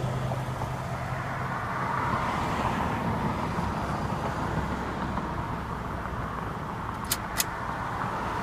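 Road traffic: cars going by, a steady rush that swells a little two to three seconds in. Near the end come two sharp clicks about a third of a second apart.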